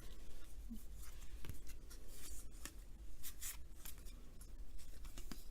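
Baseball trading cards being slid and flipped by hand one after another: a string of soft papery swishes and light ticks.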